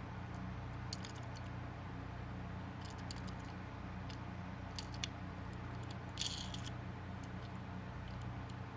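Hands handling a Hot Wheels die-cast car and its packaging: scattered light clicks and a brief crinkle about six seconds in, over a steady low hum.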